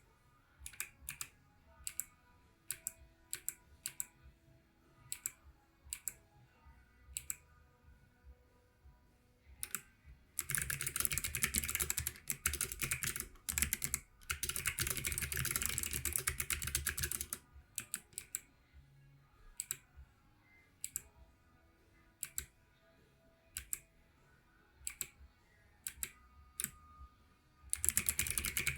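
Planck EZ mechanical keyboard with clicky Kailh Box White switches and blank keycaps being typed on: single key presses with a sharp click, about one or two a second, then two runs of fast continuous typing about ten seconds in, single presses again, and fast typing once more near the end.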